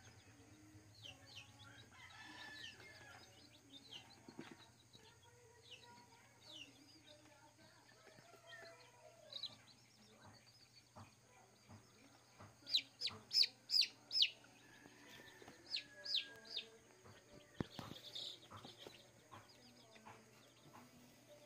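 Day-old Rhode Island Red chicks peeping: scattered faint peeps throughout, with a run of five loud, sharp, falling peeps about halfway through and a few more shortly after.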